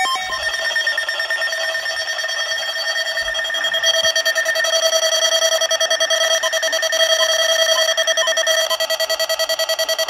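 NOAA weather alert radios sounding their warning alarm for a Special Marine Warning: a loud, steady electronic tone with a rapid pulse.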